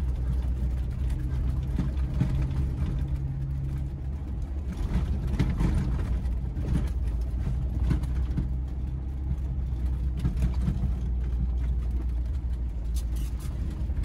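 1994 Geo Tracker 4x4's four-cylinder engine running at a steady low speed as it drives along a rough desert wash, with scattered knocks and rattles from the vehicle over the uneven ground.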